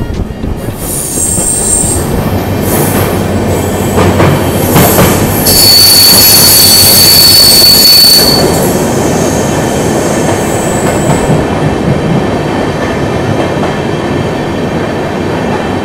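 LHB passenger coaches running through a rail tunnel: continuous wheel-and-rail rumble, with a high steady wheel squeal from about five to eight seconds in, the loudest part. Fainter brief high squeals come near the start and again later.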